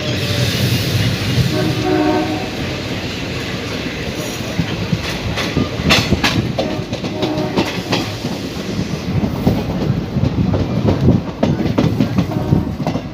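Passenger train coaches rolling along the track, heard from on board: a steady rumble with irregular clatter of the wheels over rail joints. A horn sounds briefly about two seconds in.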